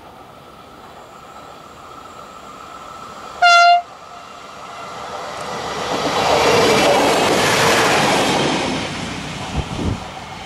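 A HEX Alstom Coradia LINT diesel railcar gives one short, high horn blast about three seconds in. It then approaches and passes close by, its engine and wheel noise swelling to a peak and fading, with two low thumps near the end.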